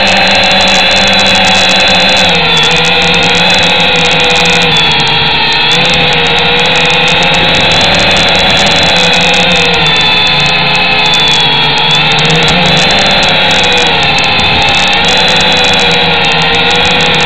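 A small drone's propeller motors whining steadily, heard close up through the drone's own camera. Its several tones sag and rise in pitch a few times as it climbs and holds position.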